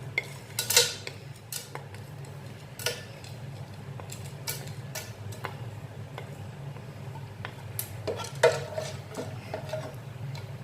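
Metal spoon clinking and knocking against a non-stick pan as whole spices (peppercorns, cloves, cinnamon, cardamom) are tipped into the hot oil and stirred: scattered irregular clicks over a steady low hum.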